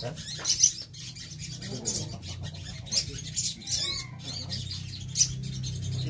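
Caged sogon sunbirds chirping and twittering in quick, high-pitched bursts, with a couple of sharper calls, over a steady low hum.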